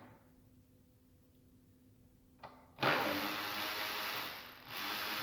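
A power tool run in two bursts, starting suddenly about three seconds in and again just before the end with a short dip between, backing out a bolt on a mower deck.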